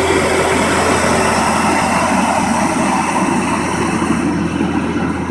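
John Deere skid steer's diesel engine running loudly and steadily, with a constant low drone. Its higher tones ease off about four seconds in.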